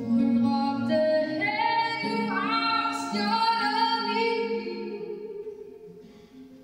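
A woman singing with acoustic guitar accompaniment. Her voice climbs to higher held notes about a second and a half in, then the music fades away near the end.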